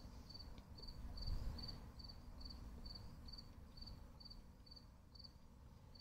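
A cricket chirping faintly and steadily, one short high chirp a little over twice a second, with soft stirring of food in a wok underneath.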